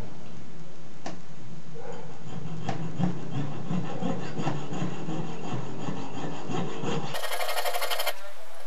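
Hand piercing saw sawing a slot in a metal plate held on a wooden bench pin: steady back-and-forth rasping strokes with a few sharp clicks. A little after seven seconds in, the strokes turn into a much faster, higher run, the sawing played back at four times speed.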